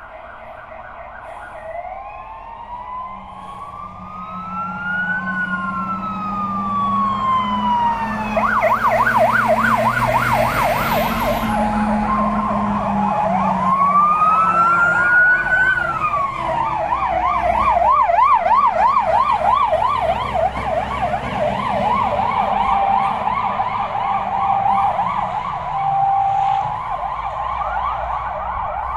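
Fire engine sirens on an emergency run: slow rising-and-falling wails, switching to a fast yelp about eight seconds in, getting louder as the trucks come near. Around the switch, the engine and tyres of a heavy fire truck are heard passing close by. The yelp and a further wail continue after it.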